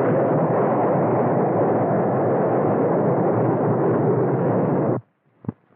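Thor ballistic missile's rocket engine at launch: a loud, steady rush of noise that cuts off suddenly about five seconds in, followed by a faint click.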